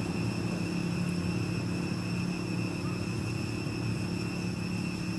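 Steady outdoor background drone: a low rumble and hum with thin, steady high-pitched tones over it, and no distinct sound standing out.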